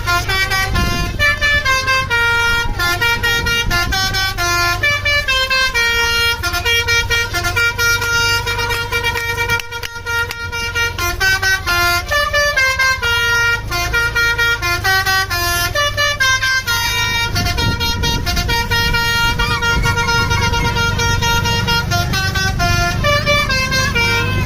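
Indonesian bus 'telolet' horn, a multi-tone musical air horn, playing a fast melody of short stepped notes over a low rumble; it cuts off suddenly at the end.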